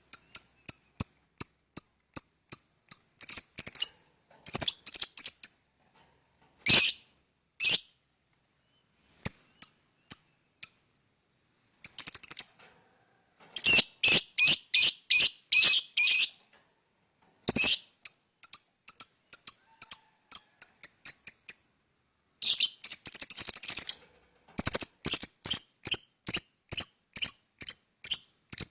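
Fischer's lovebird chirping: runs of short, sharp, high-pitched chirps, several a second, broken by brief pauses, with a few denser bursts of rapid chatter.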